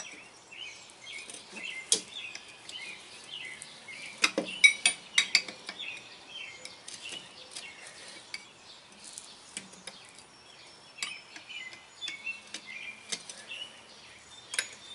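Steel wrenches and a screwdriver clinking and knocking against the pushrod and clevis of a truck air brake chamber as the old, rusty clevis is worked with wrenches. Scattered metal clicks, the loudest cluster about four to five seconds in.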